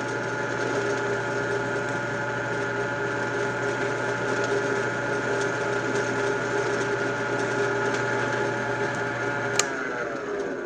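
Benchtop drill press motor running steadily, spinning a 3D-printed Halbach magnet-array demagnetizer in its chuck, a steady hum with several held tones. About a second before the end a click comes and the motor starts to wind down.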